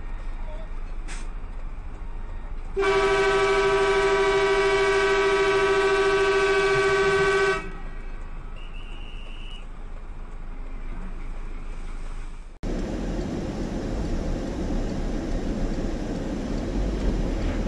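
A vehicle horn sounds one long, steady blast of about five seconds, starting about three seconds in. After an abrupt cut past the middle, a steady rumble of road and engine noise heard from inside a car.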